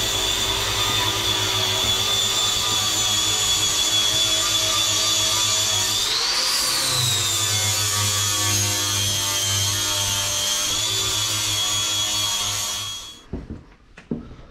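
An electric power tool running steadily with a high whine. Its pitch briefly rises and falls about halfway through, then it is switched off and winds down near the end, followed by a few knocks.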